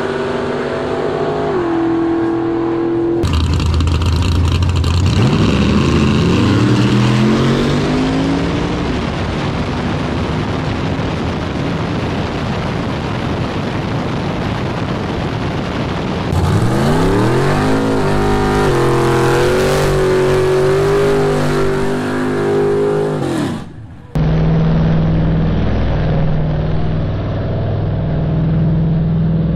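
Drag-racing car engines at full throttle, heard in several cut-together clips. Their pitch climbs steeply as they accelerate, and a steadier engine note follows near the end.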